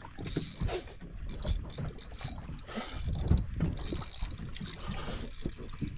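Spinning reel being cranked to bring in a hooked fish on a bent rod, its gears clicking under load.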